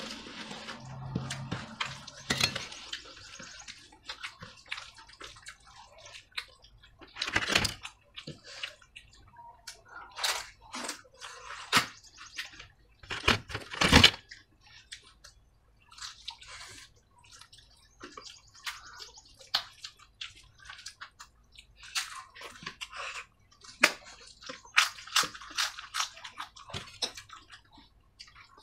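Eating sounds: wet squishing and smacking as rice and kadhi are mixed and eaten by hand, broken by sharp clicks and crackles. The loudest crackle comes about halfway through as a papad is torn.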